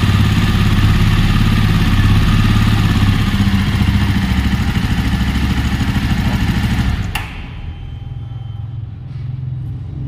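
Jawa Perak's single-cylinder engine running steadily at idle, recorded close to the exhaust. About seven seconds in the sound cuts off abruptly with a click, leaving a fainter low hum.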